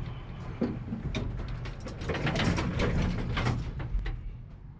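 A run of knocks and clatters, sparse at first and crowded together from about two to three and a half seconds in.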